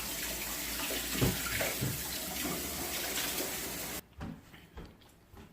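Water running from a tap in a steady rush, shut off abruptly about four seconds in.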